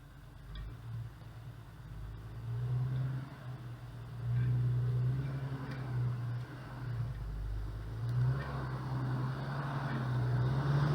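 Jeep Cherokee XJ driving, with a low hum that swells and fades in pulses and grows louder as it goes. This is the sound of a failing front-axle U-joint, which the owner says got worse very suddenly.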